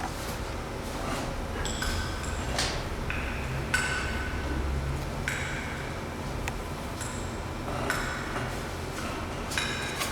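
Ancient glacier ice popping and crackling as it melts and its compressed air bubbles escape: scattered sharp clicks and short ringing pings. A low rumble runs underneath, strongest from about two to five seconds in.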